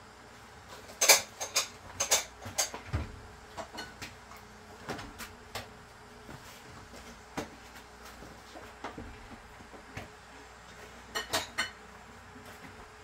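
Irregular sharp knocks and clatters of hard objects being handled, the loudest about a second in, a quick run of them over the first three seconds, scattered single knocks after, and a group of three near the end.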